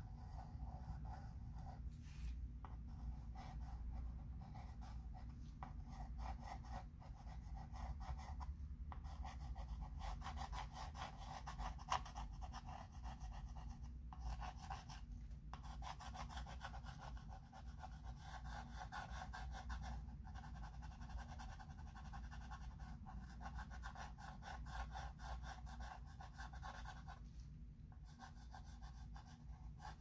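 Chalk pencil scratching on a chalkboard in quick, repeated strokes as lettering is traced and shaded. It pauses briefly a few times, over a low steady hum.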